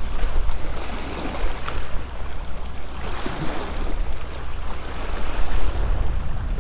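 Wind buffeting the microphone in a steady low rumble, over small bay waves splashing and washing against rock riprap.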